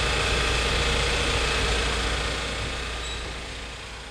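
Westerbeke marine generator running steadily just after being started on a new ignition switch; the sound fades off gradually over the last two seconds.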